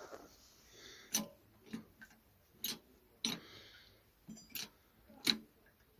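Hydraulic bottle jack being pumped by its handle to press down on a homemade fruit press, giving sharp metallic clicks about one or two a second.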